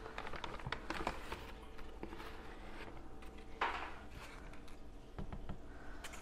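Flour tipped from a measuring cup into a stainless steel mixing bowl: a brief soft rush about three and a half seconds in, among faint clicks and taps of the cup being handled.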